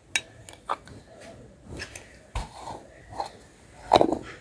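Scattered clinks and knocks of a steel spoon against steel cooking pots, several separate sharp taps with the loudest about four seconds in.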